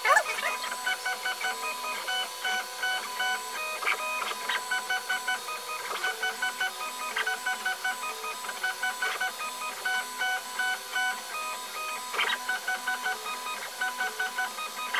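Stepper motors of an Original Prusa i3 MK2 3D printer whining in quick, repeating pitched tones that jump between a few set pitches as the head and bed make short printing moves, over a steady tone, with a few sharp ticks.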